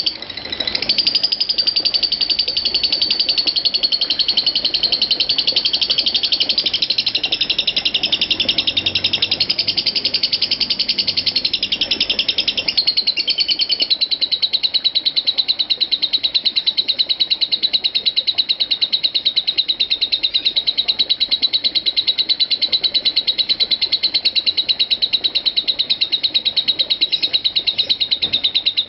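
Masked lovebird in ngekek song: an unbroken, rapid, high-pitched chattering trill with no pauses, the 'konslet' style of nonstop ngekek that keepers prize. A little before halfway the chatter settles into a steadier, more even rattle.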